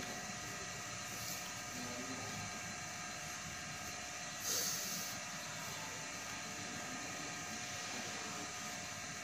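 Steady room hum, with a brief hiss about halfway through.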